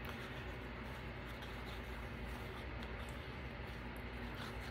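Quiet room tone with a steady low hum and faint handling sounds of a squeeze bottle of liquid glue being run along a paper tag, with a few soft ticks later on.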